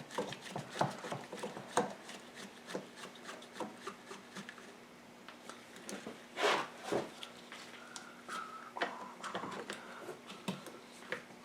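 Hand-tool work on a quad's air cleaner housing: scattered clicks and knocks with scraping and rubbing of parts, the longest scrape about six and a half seconds in. A faint steady hum runs underneath.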